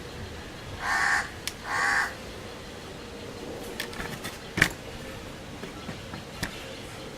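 A crow cawing twice, two harsh calls about a second apart, followed by a few light clicks and one sharp click about four and a half seconds in.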